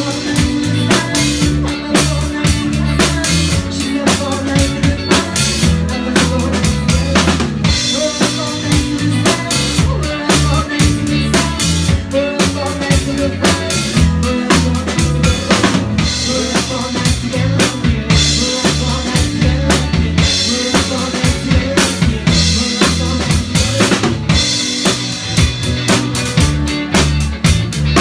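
Live band playing a pop cover: a drum kit drives a steady beat with kick and snare, over a bass line that steps between notes.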